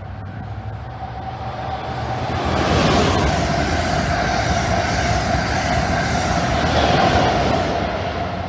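Amtrak Acela Express high-speed electric trainset passing at speed: the rush of the train builds over the first three seconds, stays loud with a steady whine, and begins to fade near the end.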